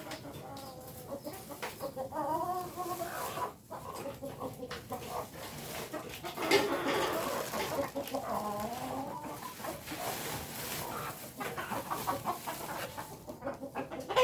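Ayam kampung (Indonesian village chickens) clucking, several birds calling in short overlapping clucks, with a brief louder noise about six and a half seconds in.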